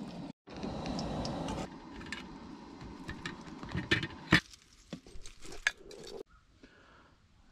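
Metal spatula and tongs clinking and scraping against enamelware camp plates as food is served: a string of sharp clinks, the loudest about four seconds in, after a brief steady hiss at the start.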